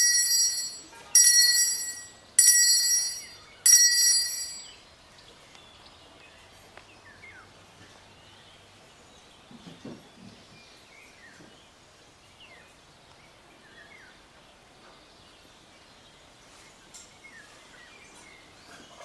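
Small altar bell rung four times, about a second apart, each ring fading away. It is the bell rung at the elevation of the chalice after the consecration. Then only faint bird chirps.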